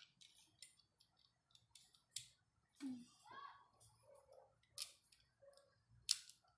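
Plastic Lego bricks clicking and rattling as pieces are pressed onto a small Lego car model and handled, with three sharp clicks, the loudest near the end.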